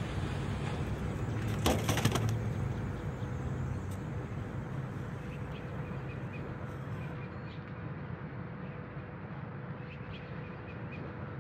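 Plastic trash bags rustling and crinkling briefly about two seconds in as someone shifts on them, over a steady low hum and background noise; a few faint small ticks follow.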